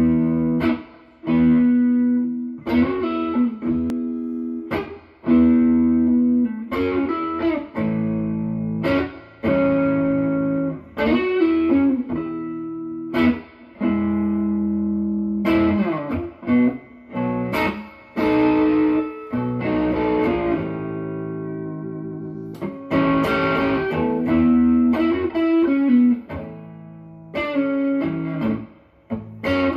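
Fender Stratocaster (Player Series) on its neck pickup, played through a Peavey Classic 30 tube combo amp: loose noodling of struck chords and single notes left to ring, with string bends along the way.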